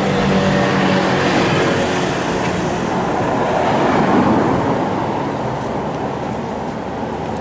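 Motor vehicle engine running with a low hum, growing into a broad rush that peaks about four seconds in and then fades as the vehicle moves away.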